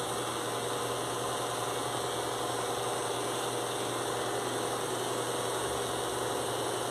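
Cordless hair clipper running with a steady buzz as it is worked through short hair in a fade.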